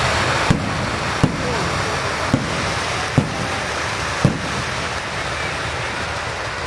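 Fireworks going off: five sharp booms about a second apart over a steady hiss.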